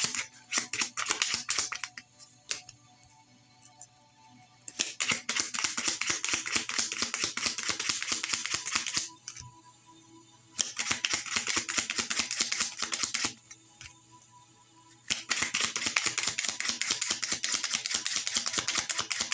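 Tarot cards being shuffled by hand: four stretches of rapid, dense card clicking a few seconds each, separated by short pauses, over soft background music.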